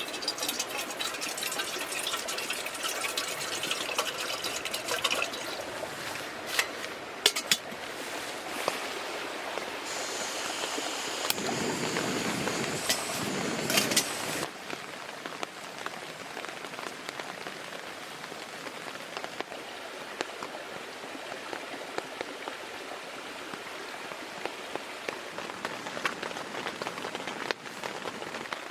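Steady water noise with scattered small clicks, then a louder spell of pouring or splashing water that cuts off abruptly about halfway through. After that comes an even patter of rain with drops ticking.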